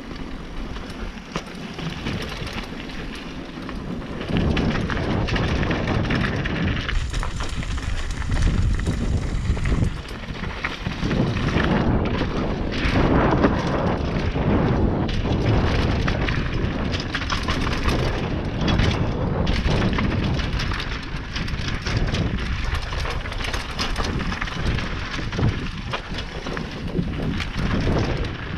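Mountain bike descending a dirt downhill trail at speed: wind buffeting the camera's microphone, with the tyres rolling over dirt and the bike rattling and knocking over bumps. It gets louder about four seconds in.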